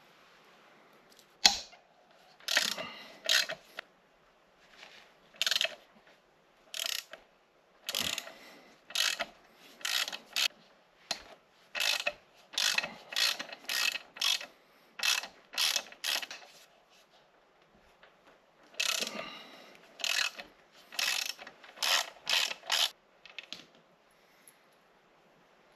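Hand ratchet wrench clicking in repeated short strokes, about one a second, with a pause partway through. A sharp metallic knock sounds about a second and a half in.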